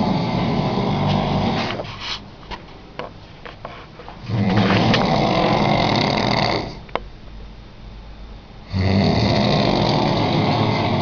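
A person snoring very loudly, in long buzzing snores of about two and a half seconds each, three in all, with quieter breathing between them.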